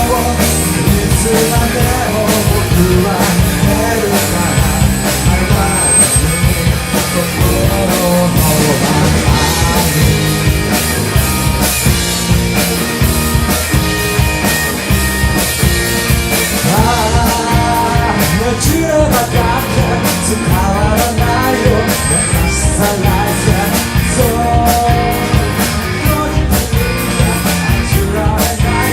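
A rock band playing a song live, with drum kit, electric guitars and a singer, loud and continuous.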